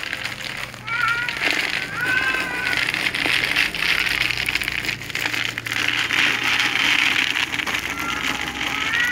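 Cats meowing in short arched calls, a few about one to two seconds in and again near the end. In between comes a dense crackling rattle of dry cat food and its plastic bag as kibble is poured into a plastic bowl.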